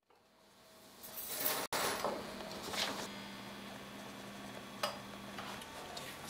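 Pencil scratching on notebook paper, with a few small knocks and a low steady hum. Nearly silent for about the first second.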